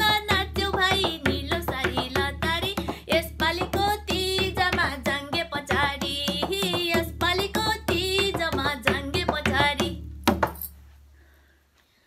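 A woman singing a Nepali Teej folk song while she beats a madal, a two-headed Nepali hand drum, with steady drum strokes under her voice. The singing and drumming stop about ten and a half seconds in, and the sound dies away.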